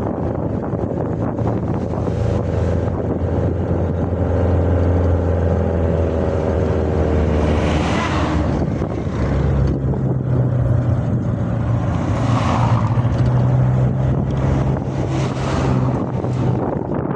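An engine running steadily with wind noise on the microphone; its pitch steps up about halfway through.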